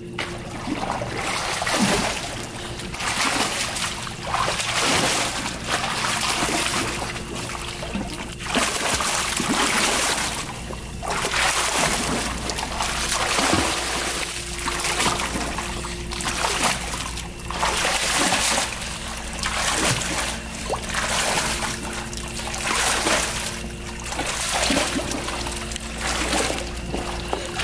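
Splashing of a child swimming front crawl, a surge of splash with each arm stroke and kick, repeating roughly once a second, over a steady low hum.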